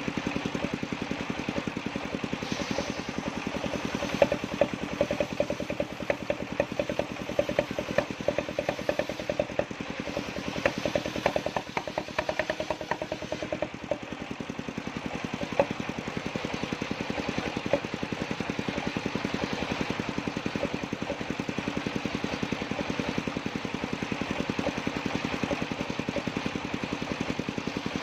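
Engine-driven circular sawmill running steadily while a block of jackfruit wood is fed through the blade, with sharp knocks and clatter of boards being handled in the middle of the stretch.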